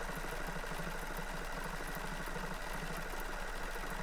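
BERNINA 770 QE sewing machine running steadily at slow speed, stitching a decorative stitch through fabric.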